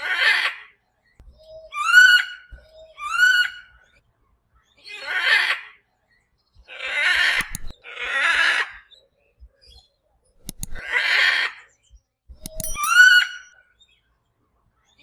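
Parrot calling: harsh, grating squawks repeated at intervals of one to two seconds, mixed with three clearer, rising whistled calls, each led by a short low note.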